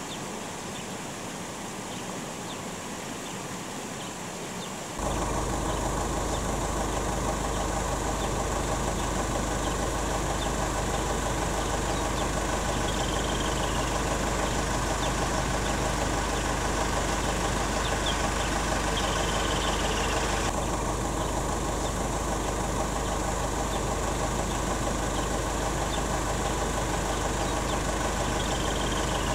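A motor vehicle's engine idling with a steady, even hum that gets suddenly louder about five seconds in. A few faint bird chirps come through over it.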